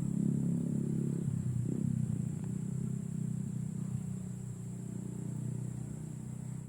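An engine running steadily nearby, a low droning hum that slowly fades.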